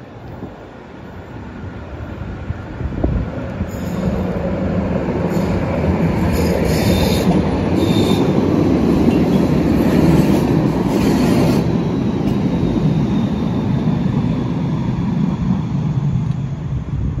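Siemens Combino low-floor tram passing close by on the tunnel ramp, growing louder from a few seconds in and running loudly for about ten seconds, with bouts of high wheel squeal in the middle.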